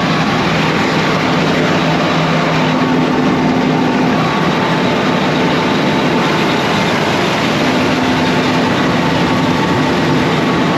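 Large diesel farm machine running steadily and loudly close by: a constant engine hum under a broad rushing noise.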